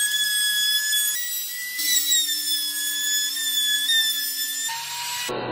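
Hand-held trim router cutting along the edge of a pine frame: a steady high-pitched motor whine that wavers slightly as the bit bites into the wood, dropping to a lower pitch near the end.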